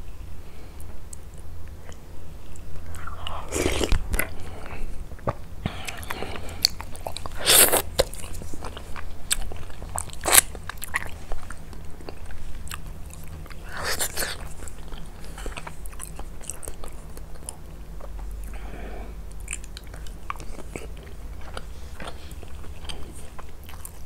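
Close-miked ASMR mouth sounds of a person eating chicken shakriya (chicken cooked in yogurt sauce) with rice: steady chewing and biting with many wet clicks and a few louder bites.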